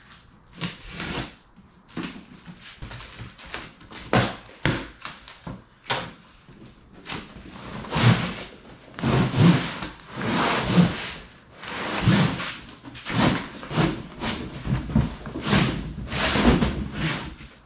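A large cardboard shipping box being handled on a concrete floor: flaps pulled open, the box knocked and tipped up on end, then several seconds of cardboard scraping and fabric rubbing as the bagged Otter Vortex Monster Lodge ice shelter slides out onto the floor.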